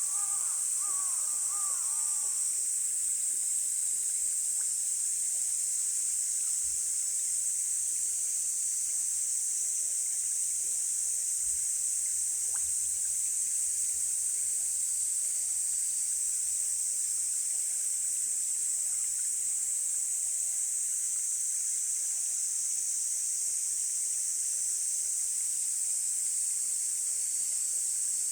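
A mountain stream flowing under a steady, high-pitched chorus of insects. A bird calls a quick run of short arched notes in the first two seconds.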